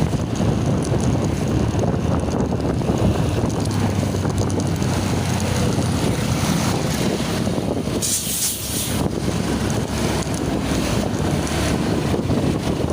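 Road traffic rumbling past with wind buffeting the microphone, and a brief hiss about eight seconds in.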